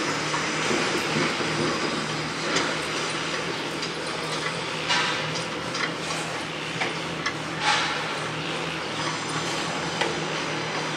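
Construction-site din: a steady engine drone from working machinery under a wash of noise, broken by several sharp metallic clanks and knocks, the loudest about two-thirds of the way through.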